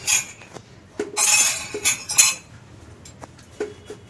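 Kitchen utensils and dishes clinking and knocking together, a handful of sharp clinks with a short scraping stretch in between, as ingredients for a chicken-mince marinade are handled.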